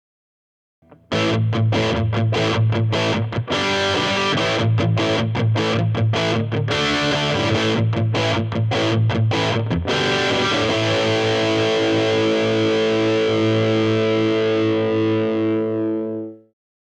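Distorted electric guitar played through a Revoltage RV-15T tube amplifier combo. A choppy riff with many short stops gives way, about ten seconds in, to a chord left ringing for several seconds, which is then cut off abruptly.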